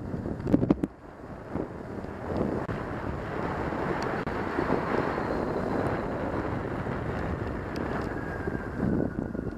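Wind rushing and buffeting over the camera microphone on a moving Yamaha FZ6 motorcycle, over a steady rush from the bike and its tyres on the wet road. A couple of heavy wind thumps come about half a second in.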